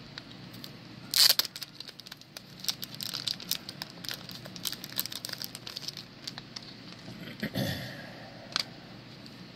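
Plastic card packaging crinkling as trading cards are handled and unwrapped. A loud burst of crackles comes about a second in, then scattered clicks and rustles, a softer rustle near the end and one last click.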